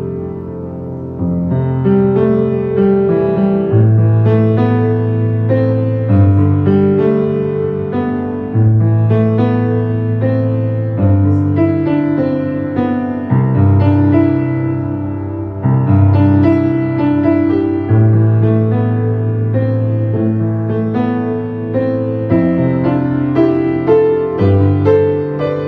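Background piano music with long-held bass notes under a slow melody.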